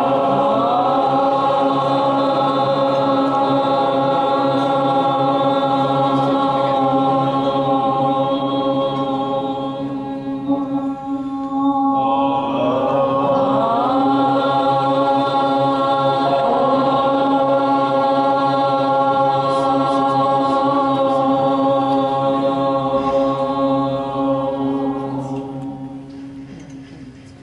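Many voices chanting together in long held tones. A short break for breath comes about 11 seconds in, then a second long chant that fades away near the end.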